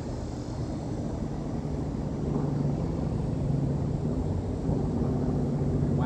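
A steady low engine drone, growing slowly louder, with no speech over it.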